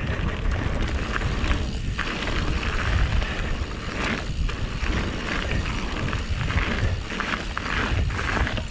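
Mountain bike, a Canyon Spectral, rolling fast down a loose gravel trail: a steady rumble and crunch of tyres on stones with rattle from the bike, mixed with wind buffeting the bike-mounted camera's microphone.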